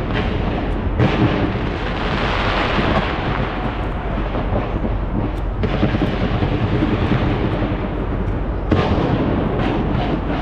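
A dense barrage of fireworks going off without pause: continuous booming and crackling. Fresh waves of crackle start about a second in, near the middle and near the end.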